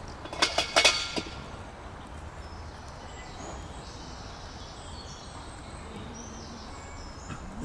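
Outdoor ambience with faint, high bird chirps through the middle and later part, and a quick run of a few sharp clicks or knocks about half a second in.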